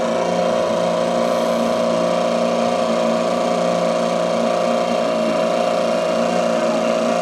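Small boat's outboard motor running at a steady speed with the boat under way: a constant, unchanging engine hum.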